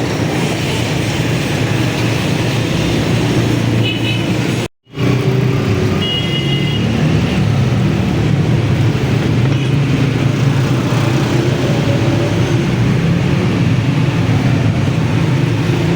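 Steady road-traffic and motor-vehicle noise, a continuous low rumble. It cuts out abruptly for a moment about five seconds in.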